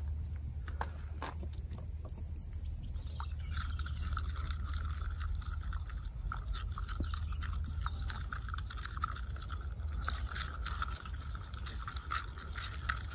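Thin wooden stick stirring a muddy mix of soil, water and wood ash in a mug: steady scraping with small clicks against the mug wall, starting about three seconds in. The ash is being worked in to raise the soil sample's pH.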